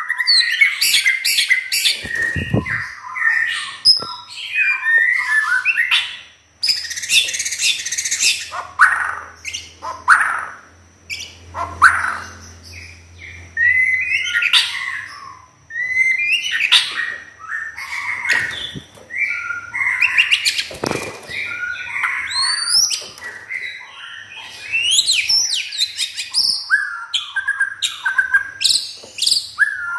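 White-rumped shama (murai batu) singing vigorously: a varied, nonstop run of whistled phrases, rising and falling glides and sharp clicky notes, in short bursts with brief gaps.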